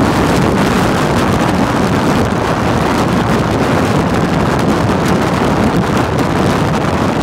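Wind rushing over the microphone of a Harley-Davidson touring motorcycle riding at highway speed, a loud, steady noise with engine and road noise mixed in.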